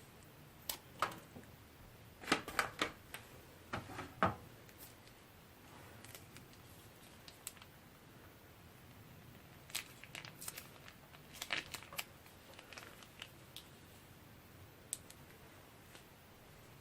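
Crinkling and clicking from handling slime-making materials such as plastic piping bags: short crackly noises in several brief clusters, with quiet gaps between.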